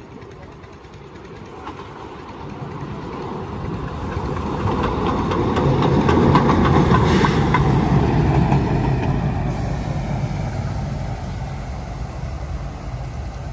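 Small diesel locomotive driving past with its engine running, getting louder as it approaches and loudest about halfway through. As it goes by the engine note drops in pitch and the wheels click over the rail joints, then it fades as it moves away.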